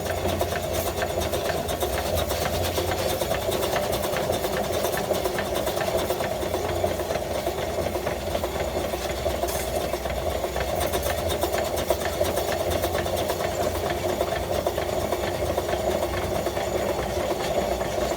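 1915 Stanley Steamer Mountain Wagon's two-cylinder steam engine running steadily, with a rapid tapping once per revolution: an engine knock.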